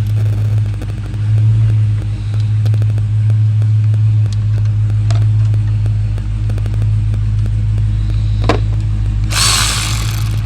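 A steady low hum runs throughout, with light intermittent clicking of tools as the bolts holding the ABS module to its hydraulic unit are worked out. There is a sharper click near the end and a short hiss just after it.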